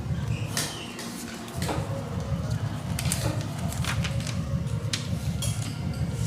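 Sheet of paper crackling and rustling in short bursts as it is handled, folded and creased, over a steady low rumble.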